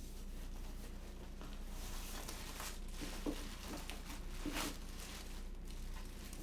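Plastic packaging and bubble wrap rustling and crinkling as it is handled and pulled apart, in uneven swishes with a few light clicks.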